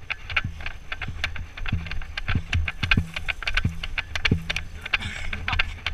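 Footsteps and rattling gear of a person running with a body-worn camera: irregular sharp clicks and clatters, several a second, over low thumps and rumble from the camera's mount.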